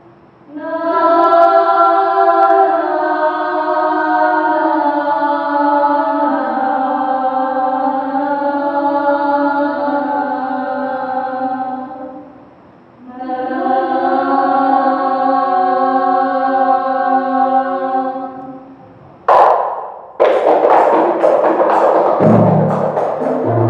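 Women's voices singing two long, slow, held qasidah phrases unaccompanied. Near the end a sharp hit, then rebana frame drums come in with a fast, busy rhythm.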